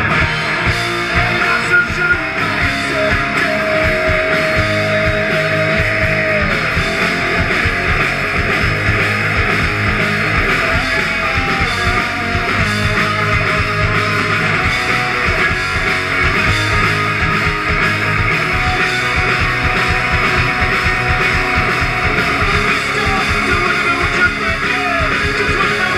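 Punk rock band playing live on electric guitars, bass and drums, loud and continuous, with a held note that bends downward about six seconds in.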